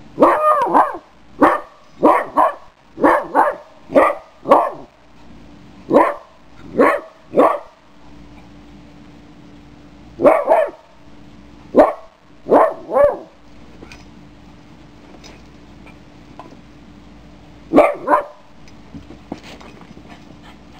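A young Chuggle puppy (Chihuahua, pug and beagle mix) barking at a cat: short single barks in quick succession, about two a second for the first several seconds, then a few more in a cluster after a pause, and one more near the end.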